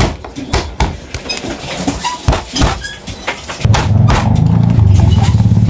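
Kitchen knife chopping through raw crabs on a wooden cutting board: a run of sharp knocks. About two-thirds of the way through, a loud low rumble comes in and drowns them out.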